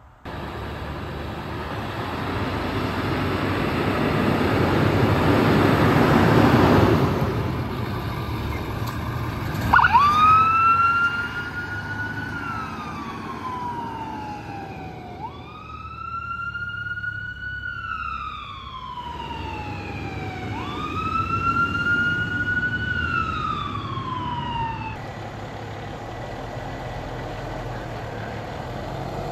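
A vehicle rushes past close by, then an emergency vehicle's siren wails in slow sweeps: three cycles, each rising quickly and falling off over about five seconds.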